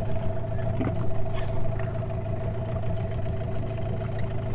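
Small outboard motor idling with a steady low hum and a constant whine above it, with a few faint clicks.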